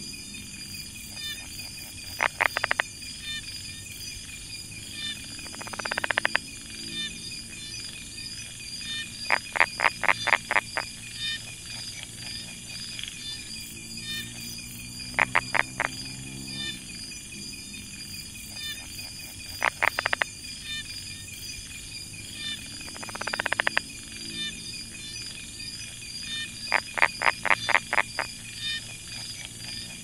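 Brown tree frog (Polypedates megacephalus) calling in short series of three to six sharp clicks, repeated every few seconds, with a couple of quicker rattling calls that swell in loudness. A steady high-pitched insect chorus runs underneath.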